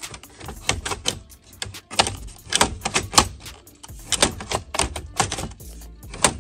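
Ford Mustang II instrument cluster's plastic housing clicking and knocking as it is pushed and worked by hand into the dash, in irregular clusters of sharp clacks.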